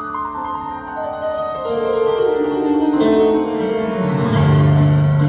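Piano-led waltz music: a run of notes steps downward over the first couple of seconds, then held notes swell louder, with a deep bass note coming in about four seconds in.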